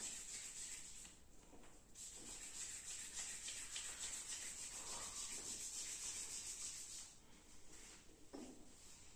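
Hands rubbing briskly over the bare skin of a man's upper arm and shoulder during a massage, a rapid rasping friction. It breaks off briefly about a second in and fades about seven seconds in.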